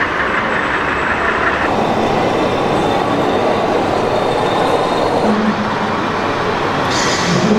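Model freight cars rolling along the track for the first couple of seconds, then the sound of radio-controlled model trucks in a large hall, with low pitched engine-like tones and a short hiss about seven seconds in.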